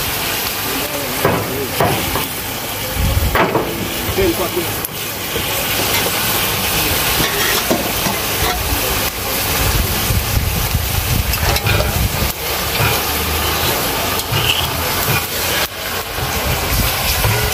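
Browned meat sizzling and frying in an aluminium pot, a steady hiss, with a spoon stirring and scraping against the pot toward the end.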